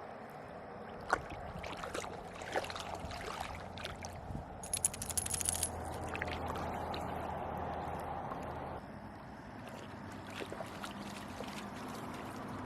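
Lake water splashing and sloshing at the shore, with scattered sharp knocks and a dense patch of crackling splashes about halfway through.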